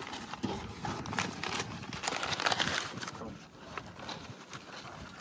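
Rustling and scraping of paper and cardboard with irregular light clicks and taps, busiest in the first three seconds, then quieter.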